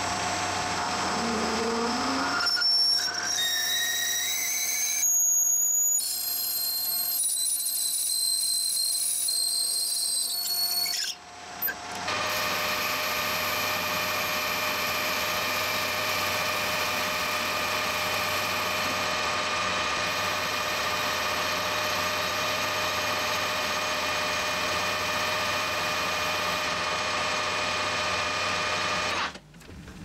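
Metal lathe drilling into a brass workpiece with a twist drill, with a high ringing tone that climbs in pitch during the first ten seconds. After a short break about eleven seconds in, the lathe runs steadily while a boring tool cuts the bore, then it stops near the end.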